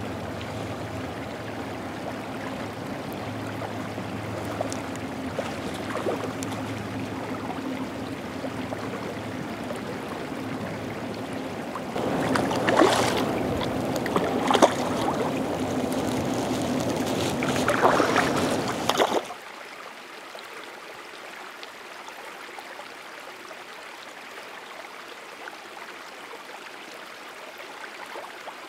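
Creek water running with a low hum underneath. About midway a hooked steelhead thrashes at the surface for several seconds, with a few sharp splashes. The sound then drops suddenly to a quieter, even flow of stream water.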